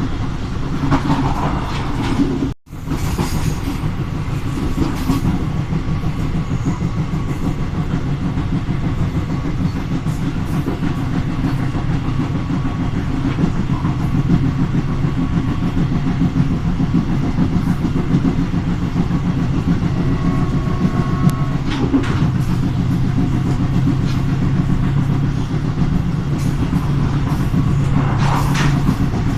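Train running steadily on the rails, with a continuous rumble, a low engine hum and scattered clicks from the wheels. The sound cuts out for a moment about two and a half seconds in.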